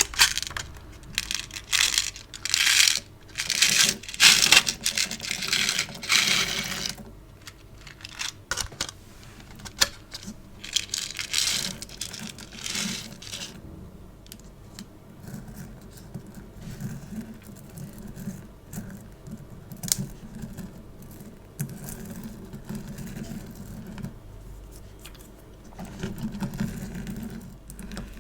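Fingers squishing and pulling sticky store-bought putty, giving bursts of crackling and popping. The bursts are dense and loud in the first half, then thin out to quieter sticky clicks and pops.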